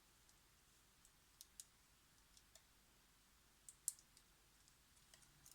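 Faint, scattered small clicks and taps of tools and parts being handled while a smartphone is reassembled, the sharpest about four seconds in.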